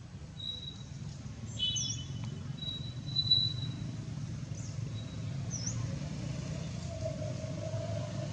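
Small animal calls, a few short high chirps and thin whistles, over a steady low rumble.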